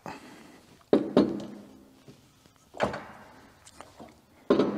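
A handful of sharp clunks and knocks, some ringing briefly, as the new hydraulic loader valve and its short return pipe are worked into place against the loader frame.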